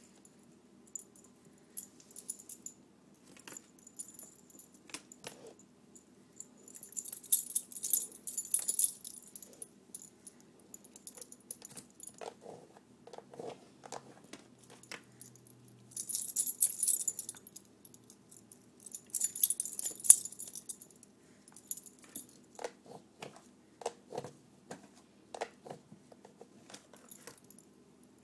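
A Great Dane's metal chain collar and dangling tag jingling in several bursts as the dog moves its head while sniffing along the floor, with scattered soft clicks and taps in between.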